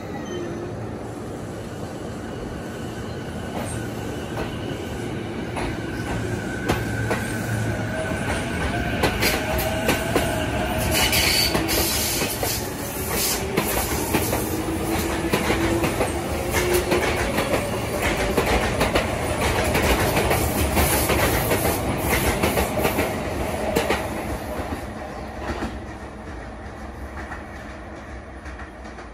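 Sotetsu electric commuter train pulling out and accelerating, its motors giving a rising whine and its wheels clicking over the rail joints. It peaks in the middle and fades as the train draws away.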